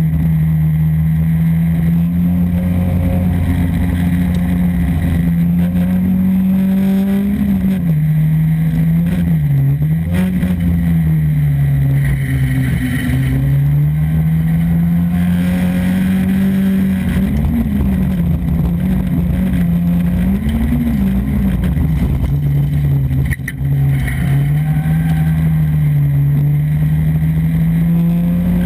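Volvo folk race car's engine heard from inside the stripped cockpit, running hard and loud, its pitch holding steady, then falling and rising several times as the throttle comes off and back on. A short knock with a brief dip in the engine sound about three quarters of the way through.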